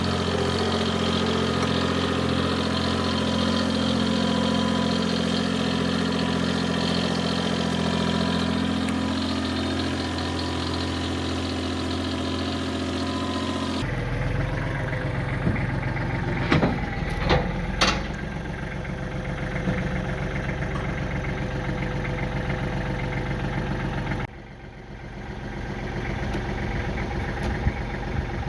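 Kubota tractor engine running steadily at idle, with a few sharp metallic clanks about two-thirds of the way through. The engine sound changes abruptly twice.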